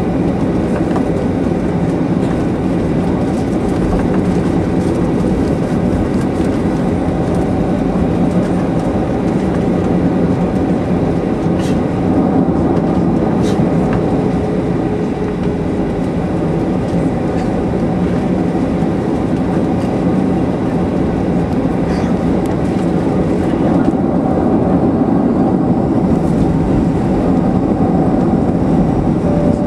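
Cabin noise inside a Boeing 737-800 rolling on the ground: a steady, loud rumble of its CFM56 jet engines and the undercarriage, with a few light knocks from the wheels. It grows a little louder in the last few seconds.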